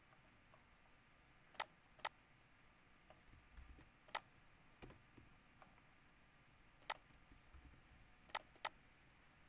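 Faint, scattered sharp clicks of a computer mouse and keyboard, six in all, two of them coming in quick pairs, over quiet room tone.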